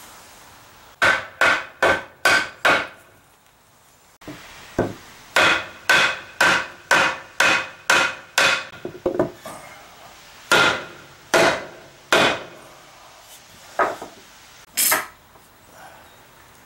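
Hammer blows on a wooden assembly, a sharp knock each time in quick runs of about two to three a second: five knocks about a second in, a longer run after a short pause, then slower single blows near the end. They seat a glued maple panel down onto its dowels.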